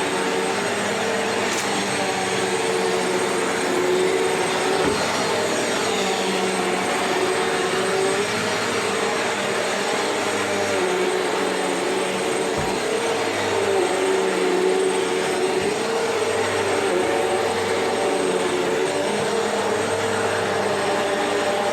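Vacuum cleaner running over old, worn carpet, a steady motor hum whose pitch dips and rises now and then, with a few faint clicks.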